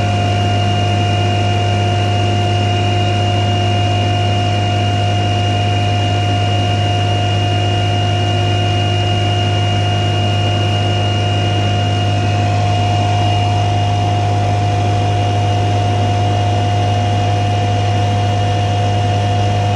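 FAE BL1 variable-torque mulcher head running on a Cat 305 mini excavator's hydraulics, its belt-driven rotor spinning at about 3000 RPM: a loud, steady low hum with a high whine over it. The head is freshly tuned to its 3000 RPM spec.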